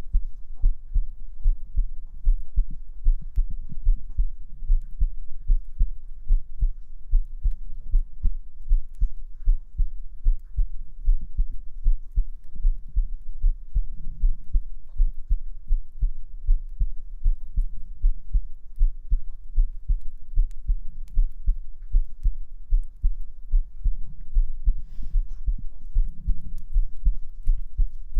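A person's heartbeat, amplified and heard close up: steady, evenly repeating deep thumps.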